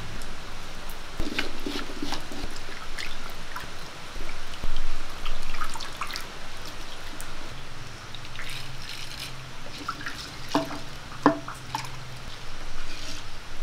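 Water splashing and dripping in a clay pot as small anchovies are washed by hand, with irregular sloshes and drips. Two sharp knocks come about two seconds before the end.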